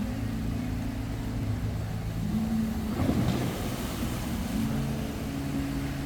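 Boat engine running steadily over the wash of the water, with a brief rush of water noise about three seconds in.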